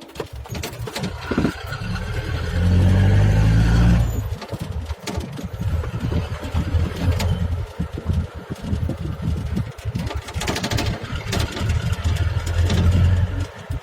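A motor vehicle's engine running, getting louder about two and a half seconds in and again for a few seconds near the end.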